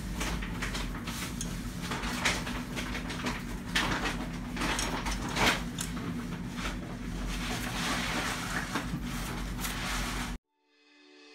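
Small metal clicks and scrapes of a hex key working the chainring bolts as a chainring is fitted to a bicycle crank spider, with a few sharper clicks, over a steady low hum. The sound cuts off abruptly shortly before the end.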